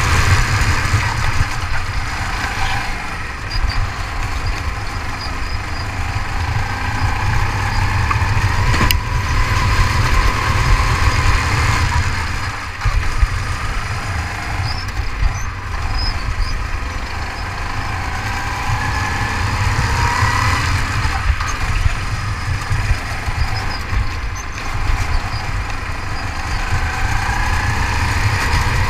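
Rental go-kart engine heard from the driver's seat at racing speed, its pitch repeatedly climbing as the throttle opens and dropping back as he lifts for the corners, over a heavy low rumble.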